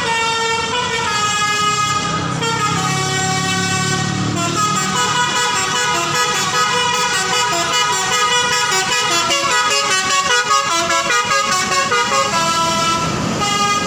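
Bus telolet horn: a multi-tone air horn playing a melody, several notes sounding together and stepping from pitch to pitch almost without a break.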